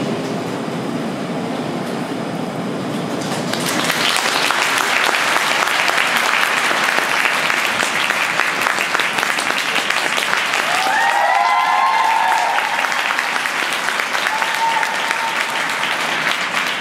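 Arena audience applauding, swelling about four seconds in, with a few high-pitched cheering shouts partway through.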